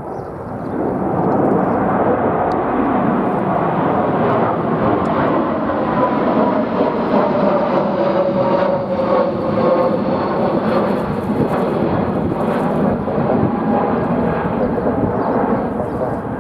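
Jet airliner passing close on its landing approach: a loud engine roar that builds about a second in and holds, with a whine that falls in pitch through the middle as the aircraft goes by.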